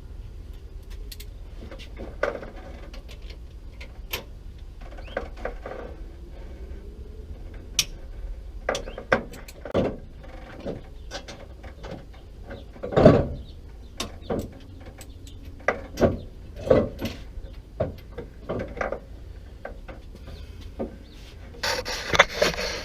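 Wrench working the cylinder-head bolts: irregular metal clicks, ratcheting and clanks, with one louder knock about halfway through. A brief rustling noise comes near the end.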